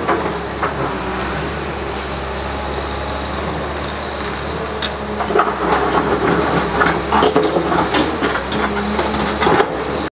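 Hyundai 320LC-9 crawler excavator's diesel engine running steadily under working load. From about five seconds in, the steel bucket scrapes and knocks against stones and gravel as it digs, in a run of irregular sharp clacks.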